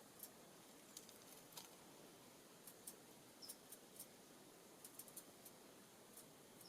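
Faint, irregular high-pitched ticks and clicks from small songbirds at a seed feeder, about a dozen spread over several seconds, with one short high chip note about three and a half seconds in.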